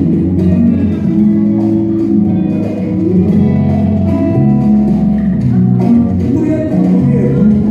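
Music with plucked guitar, playing continuously.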